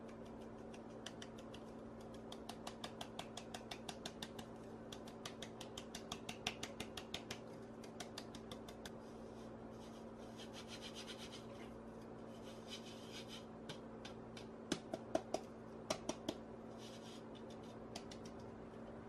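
Cake flour being sifted through a small metal sieve: a fast run of light taps on the sieve for several seconds, then short scratchy strokes of the palm rubbing flour through the wire mesh, with a few louder taps partway through the rubbing.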